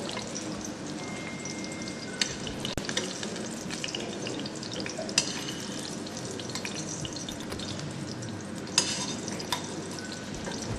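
Potato pancakes (deruny) sizzling steadily as they shallow-fry in a pan of oil, the burner switched off so they finish on residual heat. A few sharp utensil clicks about two, five and nine seconds in.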